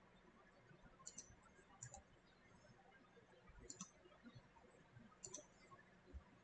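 Faint clicks from keyboard and mouse at a computer, about four short clicks or clicking pairs spread a second or two apart, over a near-silent room.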